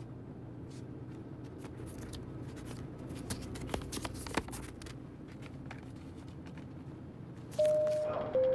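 A bag rustling and small items clicking as they are handled, with a few sharper ticks. Near the end a shop's electronic door chime sounds two ringing notes, a high one then a lower one.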